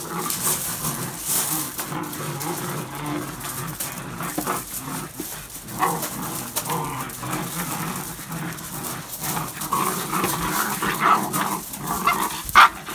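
A litter of Dutch Shepherd puppies growling and yipping as they tug and fight over a rope toy, with sharper yips near the end.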